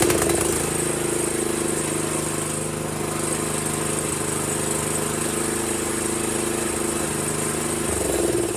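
Honda GX160 single-cylinder small engine running steadily, just started. About eight seconds in, its note changes and it begins to wind down.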